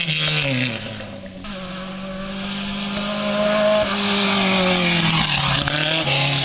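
Rally dune buggies racing past on a dirt stage. The first buggy's engine fades away with a falling pitch in the first second. A second buggy is then heard approaching at full throttle, growing louder, and its engine note drops as it passes about five seconds in.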